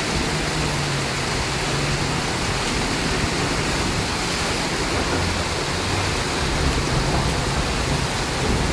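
Steady rush of heavy rain and flowing floodwater, an even roar of water with a faint low hum underneath.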